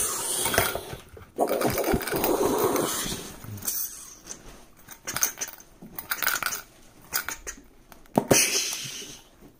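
Hands turning and handling a metal Quick Ball tin: irregular rubbing and scraping of fingers on the tin, with a few sharp clicks.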